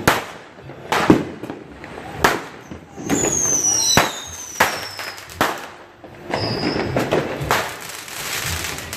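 Consumer fireworks going off: a series of sharp bangs roughly a second apart, joined about three seconds in by several whistles gliding down in pitch and a crackling hiss.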